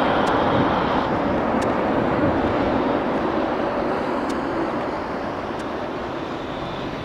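Four-engine jet airliner climbing out after takeoff, its jet engine noise a steady broad rumble that slowly fades as it draws away.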